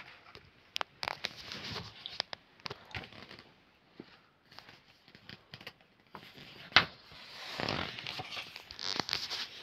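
Paper pages of a large picture book being handled and turned by hand: soft rustling and sliding with scattered light clicks, one sharper click about two-thirds of the way through, and a longer rustle of a page turning near the end.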